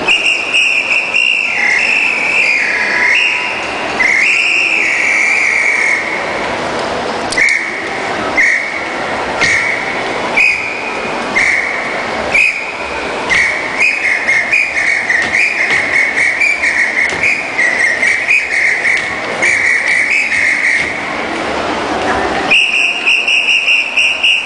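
Samba whistle (apito) blown in high blasts over a samba drum group, the pitch dipping and warbling in the first few seconds. From about halfway it turns to a fast run of blasts, several a second, the signal whistle of a samba bateria leader calling the drummers.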